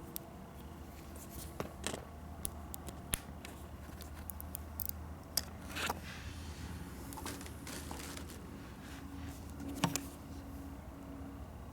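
Handling noise: scattered small clicks and light scrapes over a steady low hum.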